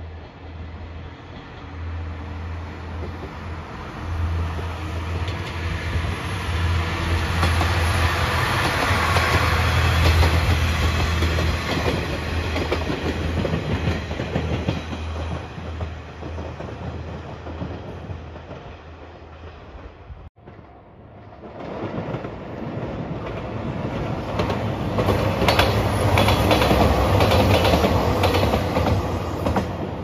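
Anpanman Torokko diesel train approaching and passing: a steady low engine hum with wheels running on the rails, building to a peak about ten seconds in and fading away. After an abrupt break about twenty seconds in, a JR Shikoku 2700-series diesel limited express passes with rapid wheel clatter over the rail joints, loudest near the end.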